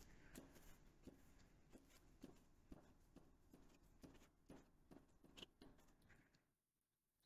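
Faint rubbing and light ticks of a glue stick being run over a paper cutout on a table, stopping about six and a half seconds in.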